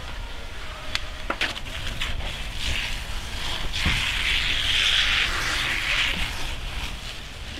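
Fire hose spraying water into a burning straw shed: a hiss that swells from a few seconds in, is loudest in the middle and fades near the end, over a steady low rumble, with a few sharp cracks about a second in.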